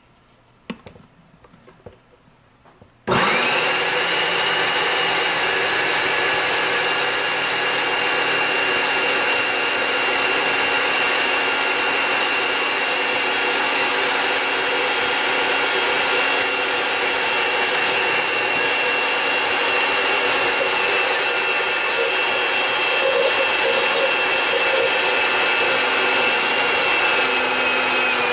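A few light clicks, then a countertop blender switches on suddenly about three seconds in and runs steadily at full speed with a constant whine, blending a thin brown liquid mixture.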